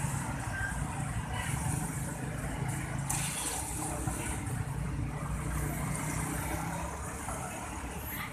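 Steady low rumble, engine-like, with a few faint clinks over it.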